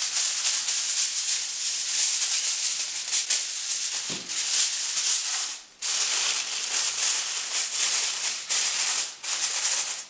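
Aluminium foil crinkling and crackling as hands press and fold it over the rim of a round baking pan, with a brief pause about halfway through.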